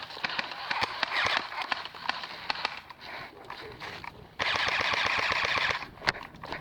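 Airsoft guns firing: rapid sharp pops and clicks. About four and a half seconds in comes a loud hiss lasting about a second and a half.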